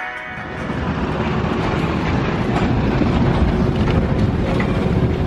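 Heritage tram rolling past close by on its rails: a steady low rumble that comes in about half a second in.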